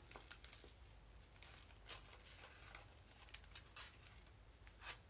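Faint, scattered rustles and light clicks of paper as a handmade self-wrapping accordion book is unwrapped and opened, with the most distinct ones about two seconds in and near the end.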